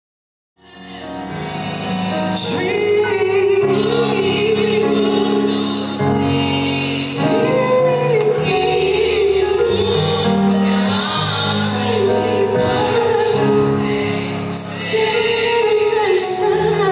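A small group of female singers singing a slow song in harmony, accompanied by an electronic keyboard, with held notes and vibrato. It fades in from silence within the first second or two.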